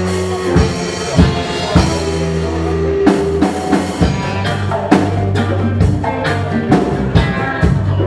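Live rock band playing an instrumental passage: drum kit and congas under sustained low bass notes and electric guitar. The drum hits grow busier about halfway through.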